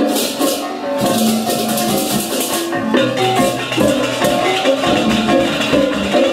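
Balinese gamelan music: metal percussion playing quick, changing melodic notes over a dense shimmer of rapidly struck cymbals.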